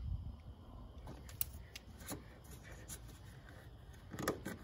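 Faint scattered clicks of a small ratchet wrench and hand handling at a car battery terminal as the cable is tightened back on. There is a slightly louder click about four seconds in, as the red plastic terminal cover is pressed down.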